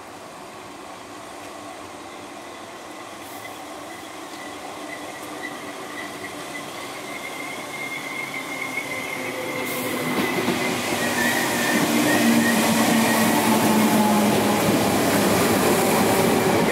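Merseyrail PEP-family electric multiple unit approaching and running into the platform, growing steadily louder as it nears, with a thin high-pitched whine held over the rumble of the wheels.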